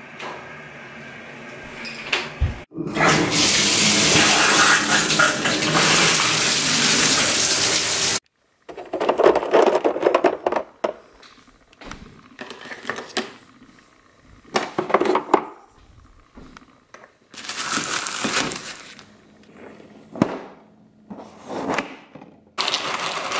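Water rushing in a small bathroom for about five seconds, then cut off abruptly. A run of short kitchen handling noises follows: a plastic zip bag rustling as eggs are lifted out, and dry cereal pouring into a plastic bowl near the end.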